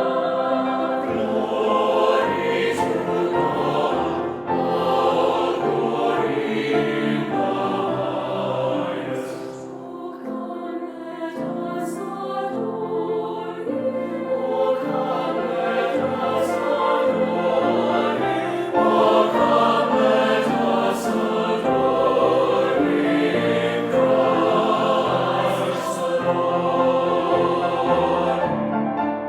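Choir singing a hymn, in phrases with a short breath about ten seconds in.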